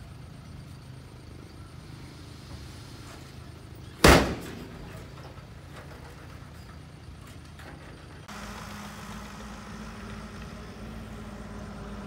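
Heavy diesel earthmoving machinery running steadily, with one loud, sharp bang about four seconds in that dies away quickly. About eight seconds in the engine sound changes abruptly to a steadier, higher hum.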